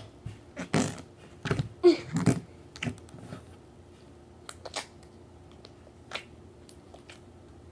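Slime being squeezed and pushed into a clear plastic tub, making wet clicks and pops as air pockets in it burst: a cluster of loud ones in the first two and a half seconds, then scattered sharper clicks.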